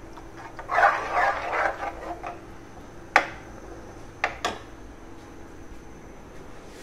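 Steel ladle stirring wet chicken mince in a pot, a wet scraping stir for about a second and a half. Then a sharp clink of the ladle against the pot, and two quick knocks about a second later as it is left resting in the pot, over a faint steady hum.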